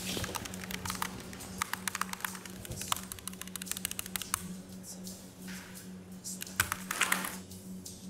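Typing on a computer keyboard: a quick run of key clicks for about four seconds, then slower, scattered keystrokes, over a steady low hum.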